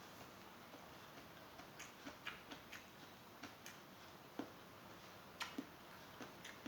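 Faint, irregular clicks and smacks of a person chewing food close to the microphone, a little louder twice in the second half.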